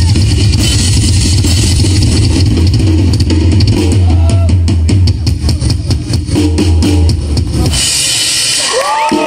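Rock drum kit solo: fast, continuous bass drum under rapid snare, tom and cymbal hits, ending abruptly about eight seconds in. Cymbal ring then gives way to the crowd cheering and whistling near the end.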